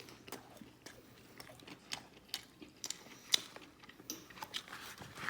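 A person chewing a mouthful of fast food close to the microphone: short, irregular clicks and smacks of the mouth.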